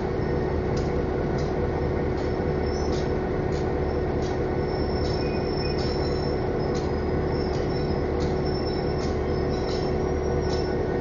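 EMD GP9 diesel locomotive with its 16-cylinder 567 two-stroke engine running, heard from the cab: a steady drone with a sustained whine over a low rumble. Short high squeaks come about once every three-quarters of a second.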